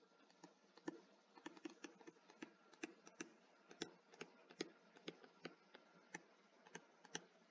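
Faint, irregular clicks and taps of a stylus on a tablet screen during handwriting, about two a second.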